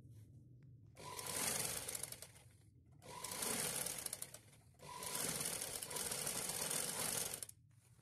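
Domestic sewing machine stitching in three runs, each about two seconds long with short pauses between, as a folded fabric waistband is sewn down.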